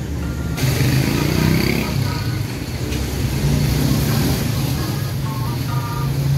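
Small motor scooters running as they are ridden slowly past one after another, the engine noise growing louder about half a second in.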